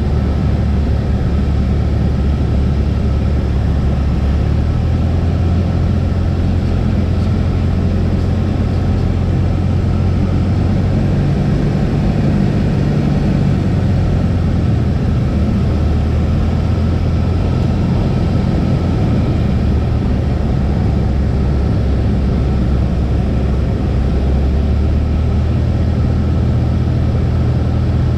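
Cessna 172's piston engine and propeller droning steadily. The pitch of the drone shifts slightly a few times.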